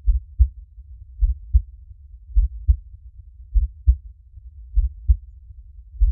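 Slow heartbeat: a steady lub-dub of two low thumps, about 0.3 seconds apart, repeating about every 1.2 seconds.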